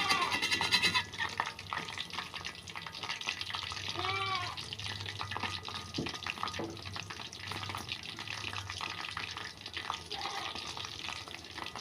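Food frying in hot oil in a pan, a steady sizzle with constant small crackles and spatters, busiest in the first second.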